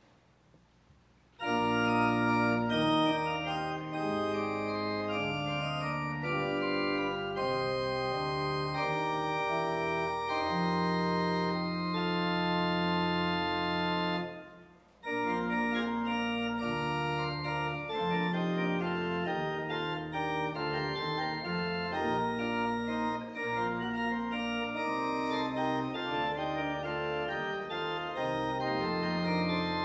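Organ playing held chords, starting about a second and a half in; it breaks off briefly near the middle, then goes on.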